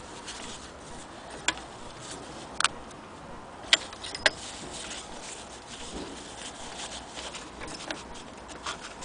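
A cloth rubbing and wiping on the brass lens barrel of a magic lantern projector, with four sharp clicks in the first half and smaller ticks as the parts are handled.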